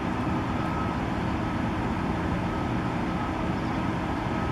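Steady urban traffic noise: a continuous rumble with a faint steady hum and no distinct events.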